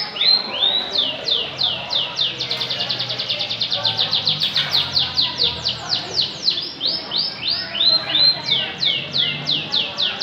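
Domestic canary singing: a long run of downward-sweeping whistled notes, repeated at a moderate pace, speeding up into a fast trill for a few seconds in the middle, then slowing again.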